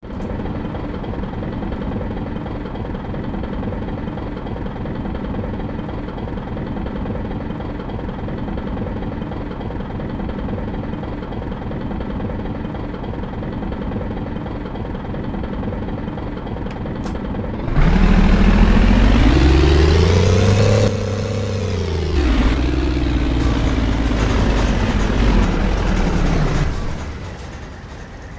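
Bus engine idling steadily, then about eighteen seconds in it revs up loudly, its pitch rising and falling twice before it fades near the end.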